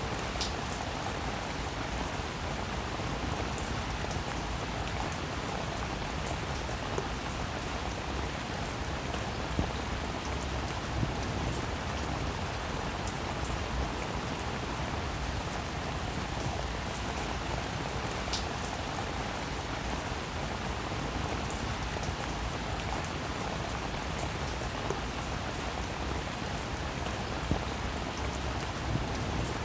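Steady rain falling, with many individual raindrops pattering and a few louder single drop hits scattered throughout.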